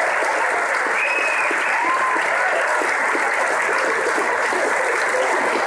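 A crowd applauding steadily, many hands clapping without a break.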